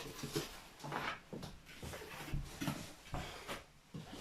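Scattered light knocks and clicks of small objects being picked up and set down on a workbench, about a dozen over a few seconds.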